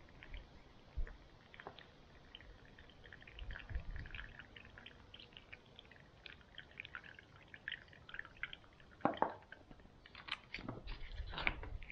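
Filtered water trickling from a Sawyer squeeze filter into a smoothie pouch as the soft plastic water bag is squeezed, with faint fine crackling throughout. Louder clicks and crinkles of the plastic bag being handled near the end.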